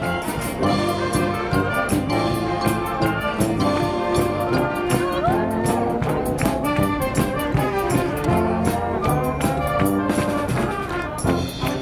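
School wind band playing, with trumpets, trombones and tubas over a steady percussion beat.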